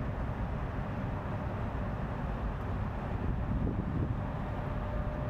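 Wind buffeting the microphone in a steady low rumble, over a faint constant hum.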